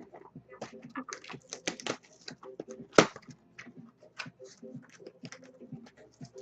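Trading cards and their packaging being handled: a quick run of small clicks and rustles, with one sharper snap about three seconds in.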